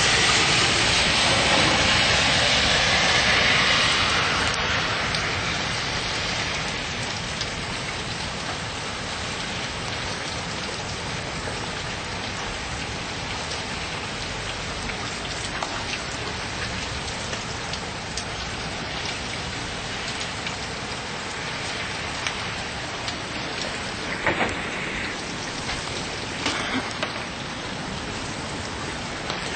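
Rain mixed with hail pelting a wooden deck, heaviest for the first few seconds and then easing to a steady downpour. There are a few sharp clicks of stones striking in the second half.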